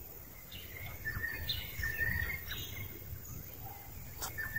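Outdoor woodland ambience with a bird calling: several short, level whistled notes in the middle, over a low background rumble. A single sharp click comes near the end.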